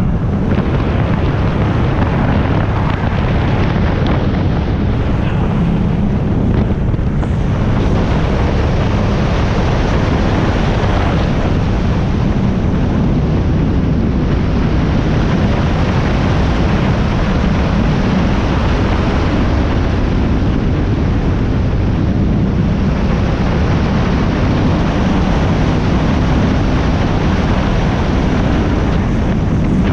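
Performance powerboat engines running hard at speed, a loud steady drone, with wind on the microphone and water rushing past the hull.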